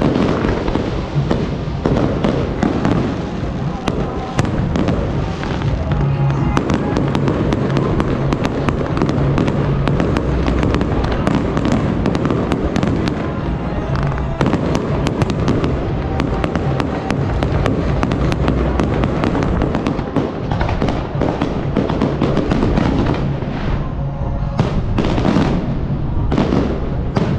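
Aerial fireworks show: shells bursting in rapid, dense crackling and banging, thinning to a few separate bangs near the end.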